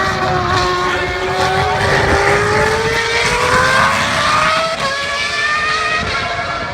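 Ferrari race car engine at high revs, climbing steadily in pitch as it accelerates, with a sudden drop in pitch near the end at an upshift before it starts climbing again.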